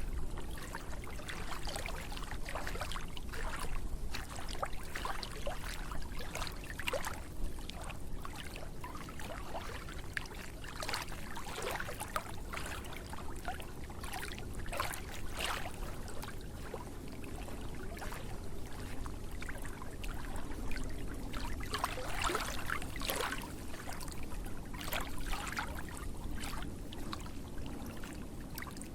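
Water splashing and trickling: many small, irregular splashes over a steady low rush of flowing water.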